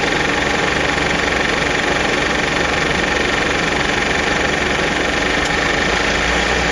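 A vehicle engine idling steadily, with a constant high hum over it.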